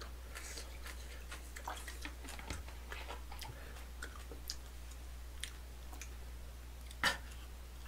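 Soft clicks and taps of a glass soju bottle and glass being handled as soju is poured and the bottle is capped, with one sharper click about seven seconds in.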